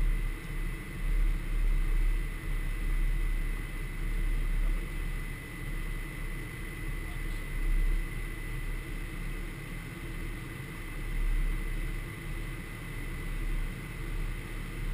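Steady flight-deck noise of a Gulfstream G550 business jet climbing out after take-off: a rush of air and engine drone over a low rumble that swells and fades, with a thin steady high tone running through it.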